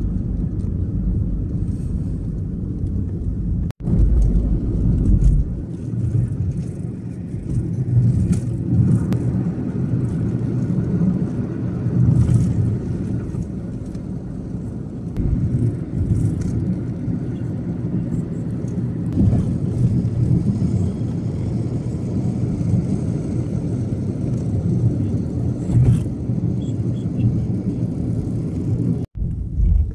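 Road and engine noise inside a moving taxi: a steady low rumble of tyres and drivetrain heard from the cabin. It cuts out abruptly for an instant about four seconds in and again near the end.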